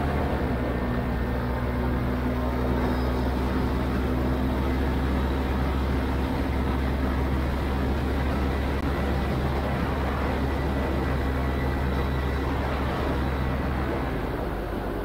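Vittorazi Atom 80 single-cylinder two-stroke paramotor engine running steadily in flight under power, with the rush of air over the harness-mounted camera. It eases off slightly near the end.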